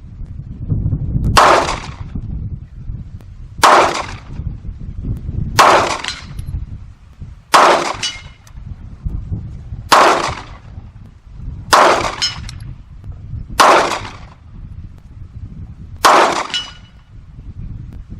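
Eight single 9mm pistol shots fired one at a time, about two seconds apart: slow, aimed fire at a long-range steel gong.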